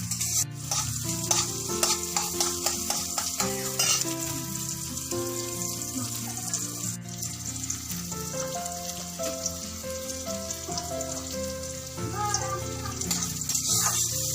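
Food sizzling as it fries in a hot pan, a steady crackling hiss, with background music playing over it.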